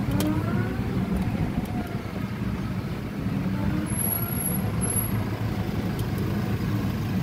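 Riding in an electric e-trike: a steady low rumble of the moving vehicle, with a faint whine from its electric motor that rises and falls in pitch as it speeds up and slows.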